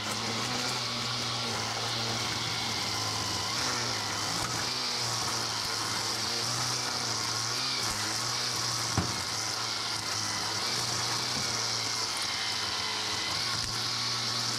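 Toro 60-volt battery string trimmer running steadily, its spinning line hissing as it cuts grass and weeds off concrete patio pavers. About nine seconds in, a single sharp thump from a falling pecan.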